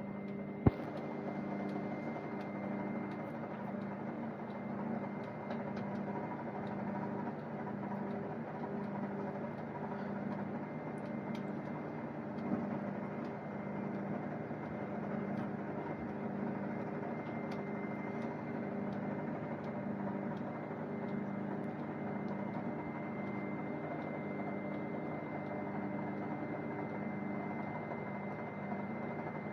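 Microwave oven running: a steady electrical hum with fan noise and a thin high whine. A sharp click comes just under a second in, and a softer one about halfway through.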